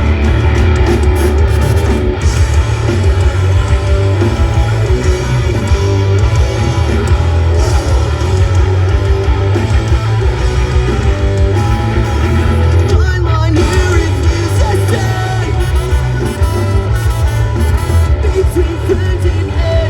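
Live rock band playing loudly, with a heavy, steady low end and no sung lyrics.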